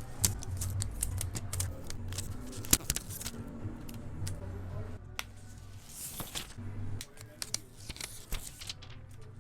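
Irregular run of sharp snips and clicks with a couple of brief rustling swishes, like scissors cutting and material being handled, over low background music.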